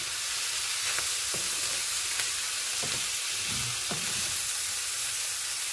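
Tofu cubes, bell peppers and onion sizzling steadily in a frying pan, stirred with a wooden spatula that scrapes through them in a few short strokes.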